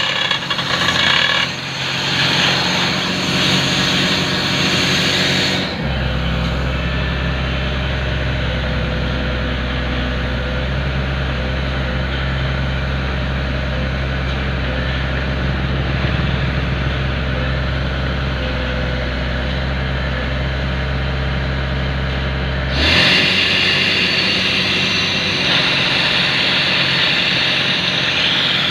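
Pneumatic rock drill running with a dense hissing clatter. From about six seconds in until about twenty-three seconds, a steady low engine drone takes over and the hiss drops away, then the drilling clatter returns.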